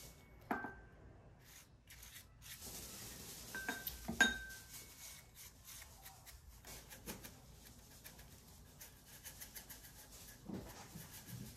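Gimbap being finished by hand: soft rubbing of a silicone brush spreading sesame oil over the rolls, with two sharp ringing clinks of glass or ceramic, about half a second and about four seconds in. In the last few seconds there is a fine, quick rattle of sesame seeds being shaken out of a glass jar.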